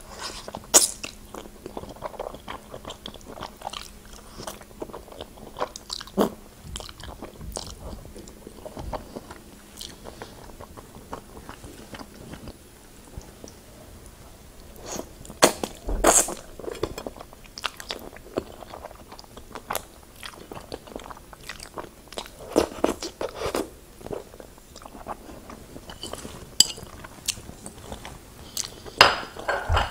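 Close-miked eating sounds: egg noodles in a creamy sauce slurped in off chopsticks and chewed, with wet mouth noises and many short sharp clicks. There are louder bursts of slurping about halfway through and again near the end.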